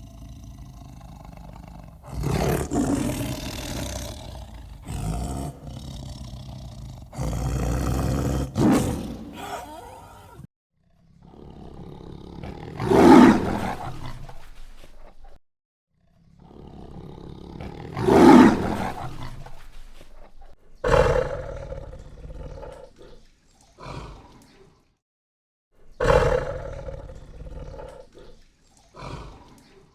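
Tiger roaring and growling in a string of separate calls, loudest about 13 and 18 seconds in, with brief gaps of silence between some of them.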